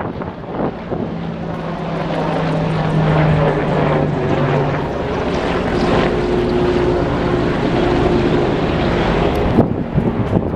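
Propeller airplane flying over, its engine a steady drone whose tone steps higher about halfway through.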